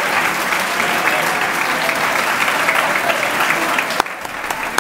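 Audience applauding steadily, thinning out about four seconds in to a few scattered claps.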